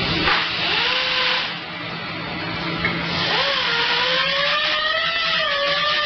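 Paint spray gun hissing in two spells as it sprays, the second starting about three seconds in. Background music with a wavering, held melody line plays over it.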